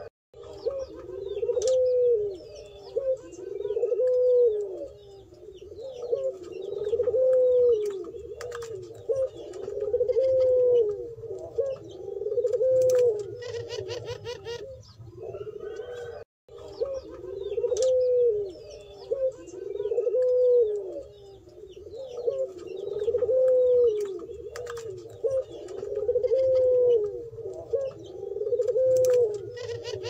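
Puter pelung doves (domestic Barbary doves) cooing over and over, each coo a rolling rise-and-fall call, about one every second and a half. Faint chirping of small birds and a few clicks sit behind it, and the sound cuts out for a moment about halfway through.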